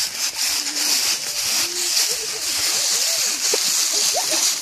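Footsteps crunching and shuffling through dry fallen leaves, several people walking at once.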